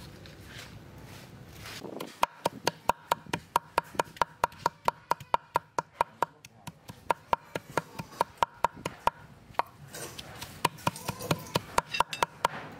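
Cleaver chopping softened red chilies on a wooden cutting board: quick, even knocks of the blade on the board, about four a second, starting about two seconds in.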